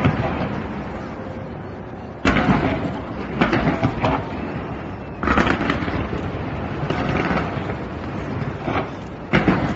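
Aerial fireworks going off in volleys: sudden booms about two, three and a half and five seconds in and again near the end, each followed by dense crackling.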